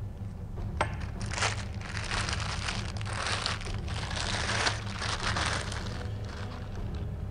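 Clear plastic bag crinkling as it is pulled off and crumpled away from a new rifle chassis, in a few seconds of dense rustling.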